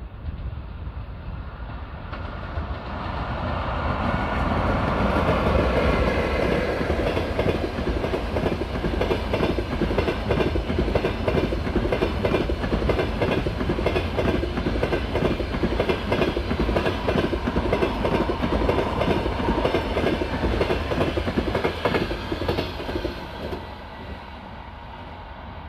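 A ChS200 electric locomotive and its passenger train approach and pass. The noise builds over the first few seconds, then the long run of passenger coaches clatters by with a steady rhythm of wheel clicks over the rail joints, fading as the last coach pulls away near the end.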